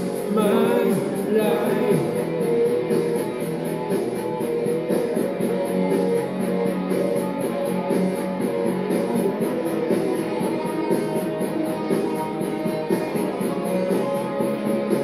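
Rock backing music with electric guitar playing through an instrumental section. A man's singing voice is heard at the start and stops about two seconds in.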